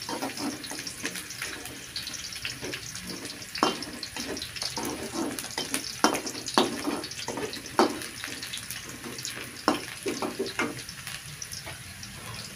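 Sliced shallots and garlic sizzling in hot oil in a wok, a steady hiss, with a metal spatula scraping and clicking against the wok as they are stirred.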